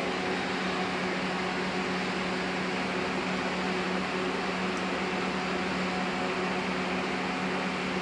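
Steady hum of a scrap wire stripping machine's 1 HP electric motor and reduction gearbox running idle, with no wire being fed through.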